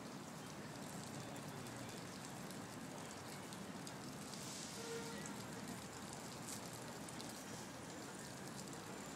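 Steady outdoor city ambience: an even hiss of background noise with a few faint ticks and a brief louder hiss about halfway through.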